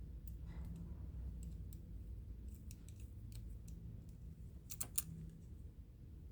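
Scattered small metallic clicks and taps of a tiny screwdriver bit and pocket-clip screws being handled against a folding knife's handle, with a sharper cluster of two or three clicks about five seconds in.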